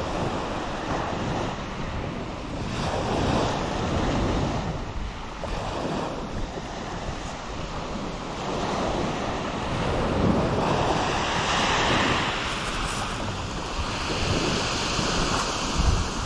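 Sea surf breaking and washing up a shingle beach, the rush rising and falling with each wave, with wind buffeting the microphone.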